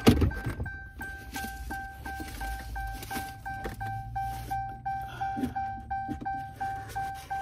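Car's interior warning chime dinging over and over at a steady even pace, the alert for a door left open in a parked car. Clothing rustle and knocks from handling the phone run under it, with a sharp knock at the very start.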